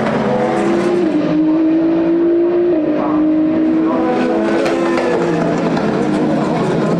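Racing car engines running on the circuit, several at once, with the engine notes holding steady and dropping in pitch in sudden steps a few times.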